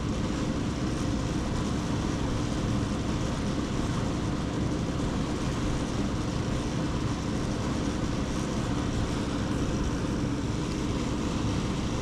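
Steady rushing of flowing river water, an even noise with no breaks or changes.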